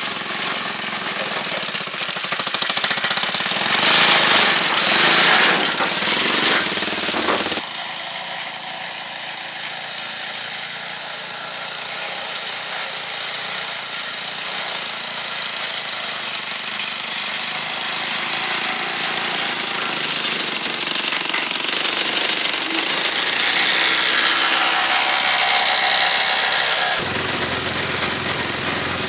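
The repaired cargo tricycle's engine running with a rapid pulsing beat. It gets louder for a few seconds, drops suddenly about seven and a half seconds in, then swells again later.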